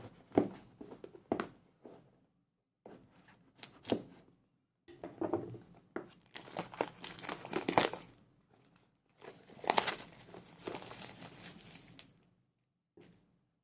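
Retail packaging of a pair of earbuds being handled and unwrapped: crinkling and tearing in several bursts, with sharp clicks, separated by brief silences.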